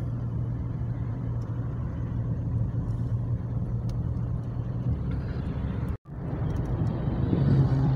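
Car interior road noise while driving: a steady low engine and tyre hum. It cuts out for an instant about six seconds in, then grows louder near the end.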